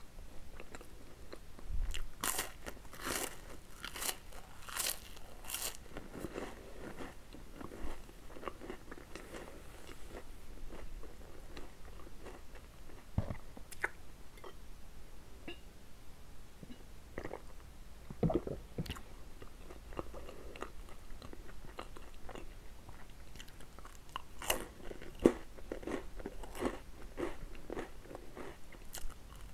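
Close-miked eating: crisp wafers and chocolate biscuits crunching in a run of sharp bites, with chewing between. The middle stretch is quieter, with only scattered clicks, and a second cluster of crunching bites comes near the end.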